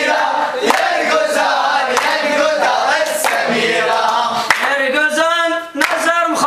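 A group of men singing and chanting together, with hand claps; a single voice holds a sung line about five seconds in.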